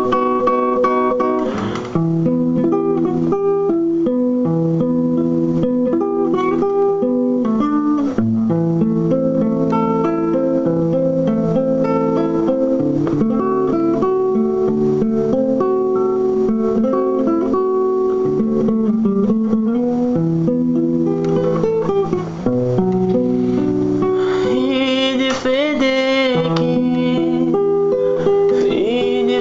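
Acoustic guitar playing an instrumental interlude of picked melody notes over chords. Near the end, a wavering, wordless vocal line comes in over the guitar.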